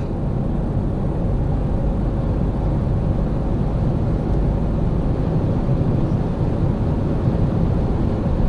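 Steady low road and engine rumble inside the cabin of a moving Volkswagen Passat GT with its 190 hp TDI diesel, with a faint steady hum over it.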